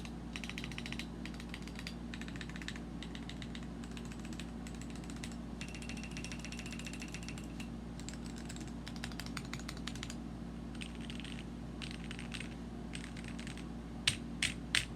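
Typing on a Womier K61 mechanical keyboard with lubed and filmed Gateron Yellow linear switches: runs of rapid key clicks broken by short pauses. Near the end come three louder single key strikes.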